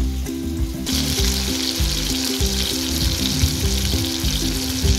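Hilsa fish steaks frying in hot oil in a pan, a steady sizzle that comes up strongly about a second in.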